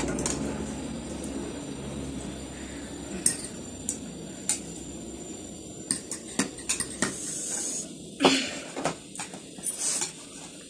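Forks and chopsticks clicking and scraping against ceramic bowls and plates in scattered taps, along with the wet sounds of noodles being slurped and chewed.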